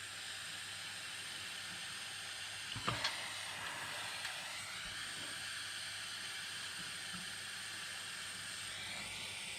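Steady hiss of a gas soldering torch burning while heating an RC battery connector, with one short knock about three seconds in.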